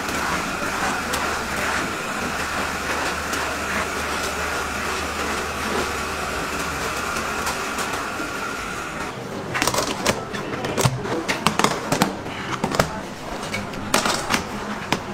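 Electric mixing machine running steadily with a constant whine and hum as its paddle stirs rice in a stainless steel tray; about nine seconds in the motor stops, and irregular clattering knocks follow.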